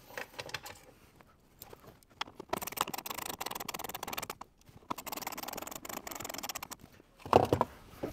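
Two screws driven in behind the dash trim, each a run of about two seconds of rapid, scratchy clicking, followed by a thump near the end.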